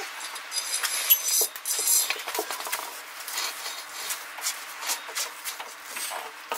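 Pickup truck rear axle on its wheels being pushed and steered across concrete, giving many scattered metallic clinks and knocks. A brief high squeal comes about a second in.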